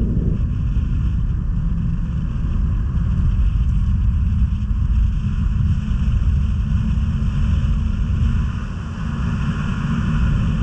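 Snowmobile riding along a packed snow trail, heard from on the sled: a steady low rumble of engine and track mixed with wind on the microphone.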